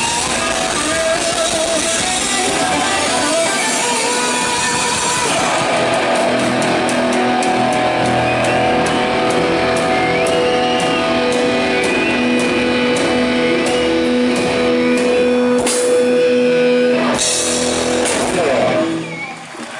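Heavy metal band playing live with electric guitars. From about six seconds in a steady cymbal beat runs under sustained guitar notes, and the sound drops away briefly just before the end.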